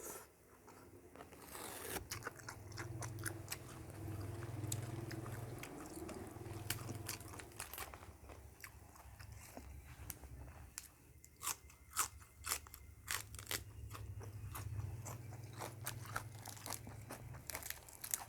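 Close-up chewing of crisp raw leafy vegetables eaten with som tam, with wet mouth sounds and many sharp crunches that come thickest in the second half.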